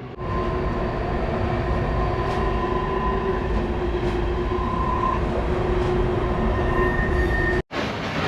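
Subway train running: a steady rumble with a held, multi-toned whine. It cuts off abruptly near the end and a similar rushing noise takes over.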